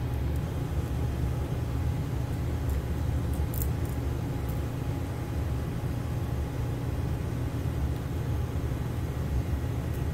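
Steady low background rumble, with a few faint small clicks about three to four and a half seconds in.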